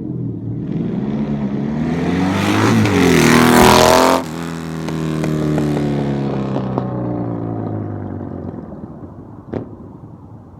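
A 1994 Honda Magna's V4 engine passing close by: it climbs in pitch and loudness as it approaches, peaks about four seconds in, then drops sharply in pitch and level as it goes past and fades away. A single sharp click near the end.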